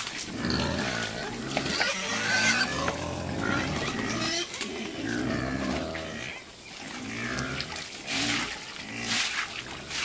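Pigs grunting, with a short call every second or so.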